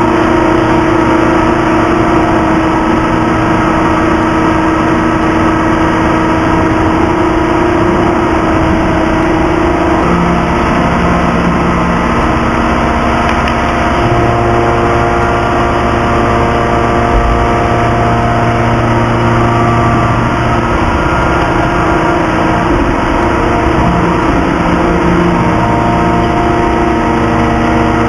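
Hydraulic pumps and motors of a 3150-ton free forging press running. They make a loud, steady mechanical hum and whine whose tones shift every few seconds as the load changes.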